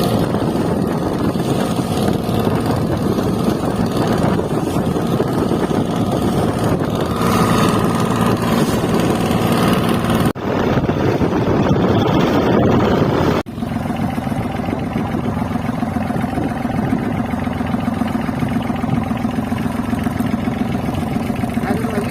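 Boat engine running steadily, breaking off briefly twice, about ten and thirteen seconds in.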